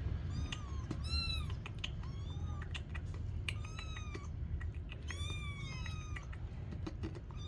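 Cats meowing: a string of short, high-pitched meows, several overlapping, among scattered faint clicks.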